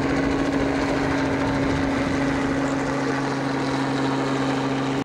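Steady drone of an aircraft engine, with a constant low hum under it. It cuts off suddenly at the very end.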